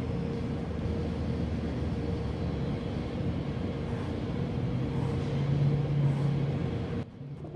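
Steady low mechanical rumble with a faint constant hum, swelling a little about five seconds in, then dropping off abruptly near the end.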